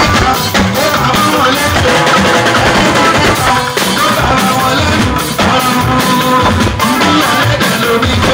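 Live band playing loud amplified dance music on electronic keyboard, electric guitar and drum kit, with a steady beat.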